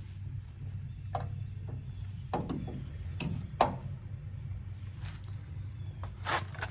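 A few scattered metallic clinks and knocks of hand tools working on a truck's rear brake caliper, over a steady background of crickets and a low hum.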